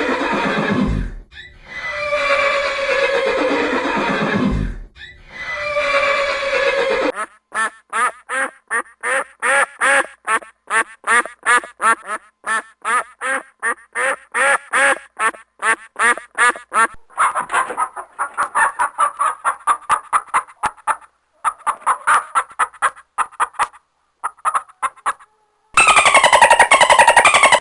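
A horse whinnies three times, each neigh falling in pitch. It is followed by a long run of rapid, choppy animal calls, several a second, and a different loud call starts near the end.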